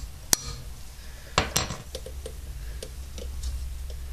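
Metal-on-metal taps on a line wrench fitted to the brake line nut of a VW Bus front brake caliper, knocking it to break the fitting loose. One sharp tap, then two louder ringing taps close together about a second later, followed by faint small clicks.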